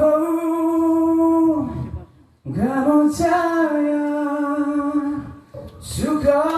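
A high, female-range voice singing unaccompanied, holding long steady notes in three phrases with brief breaths between them.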